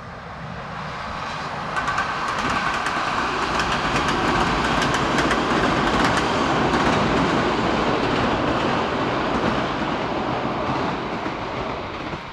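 Electric locomotive hauling a passenger train across a steel girder viaduct: a rumble with quick wheel clicks on the rails. It builds over the first two seconds and fades near the end.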